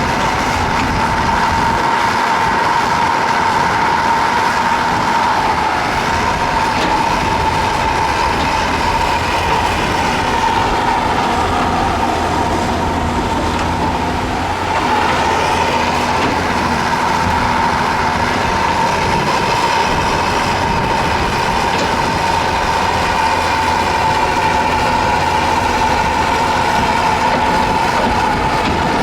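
Heavy tracked earthmoving machinery (excavator and bulldozer) running under load: a steady diesel rumble with a high, steady whine on top, easing briefly about halfway through.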